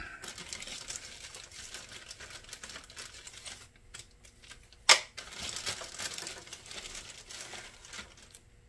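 Plastic packaging crinkling and rustling as it is handled, with one sharp click about five seconds in.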